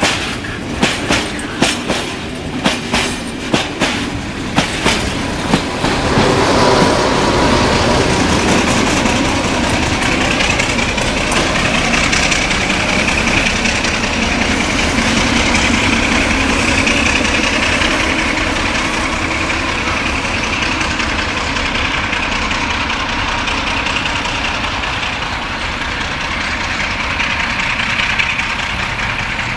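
Tank-wagon freight train rolling past close by, its wheels clacking over the rail joints in a regular rhythm for the first five seconds or so. Then the Sulzer diesel engine of an LDE2100 (ST43) locomotive working under power as it hauls the train, a steady loud sound with a held tone in it.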